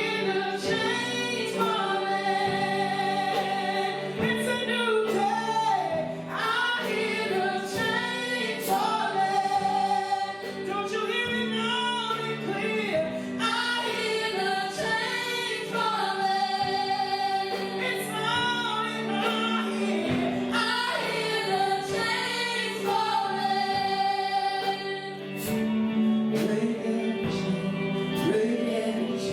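Gospel worship music with female-led singing over sustained keyboard or instrumental chords.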